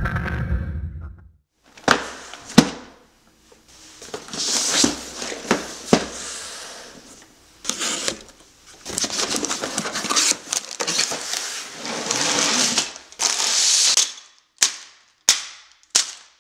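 A box cutter slicing the seals of a cardboard Lego box, with scraping and crinkling and two sharp clicks about two seconds in. Near the end, bags of Lego pieces are set down on a table one after another, a short sharp rattle about every two-thirds of a second.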